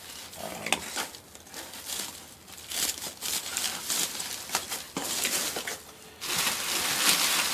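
Plastic packaging wrap crinkling and rustling in irregular bursts as a model-kit part is handled and unwrapped, loudest near the end.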